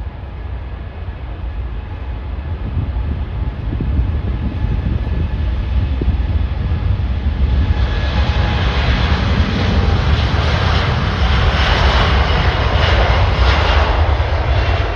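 Jet airliner engines, a deep rumble that swells into a louder roar about halfway through as the aircraft passes close by.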